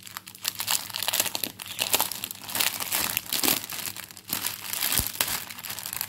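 Plastic packaging of a diamond painting kit crinkling and crackling irregularly as it is handled, with a soft knock about five seconds in.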